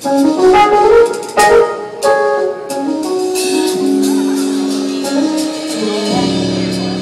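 Live band playing an instrumental song intro: quick keyboard runs and a few sharp hits, settling into held keyboard chords, with a deep bass chord coming in near the end.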